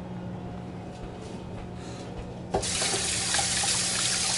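Kitchen faucet turned on a little over halfway in, then running steadily into the sink as hands are rinsed under the stream.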